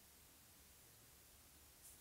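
Near silence: faint steady room hiss, with one brief soft high hiss near the end.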